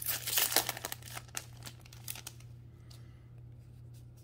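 Crinkling of a Magic: The Gathering booster pack wrapper being handled. The crackling is dense for about the first second, thins to a few scattered crackles, and dies away to faint ticks a little past two seconds in.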